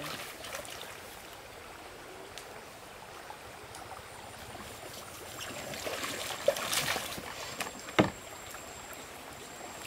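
Stream water flowing steadily around a bamboo raft being poled through shallow water, with soft sloshing and splashing about six to seven seconds in and a single sharp knock about eight seconds in.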